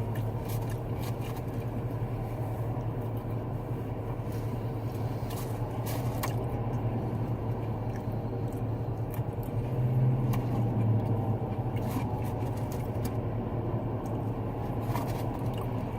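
Steady low hum of a vehicle's engine or ventilation heard from inside the cabin, with faint scattered clicks and crunches of someone chewing fried food.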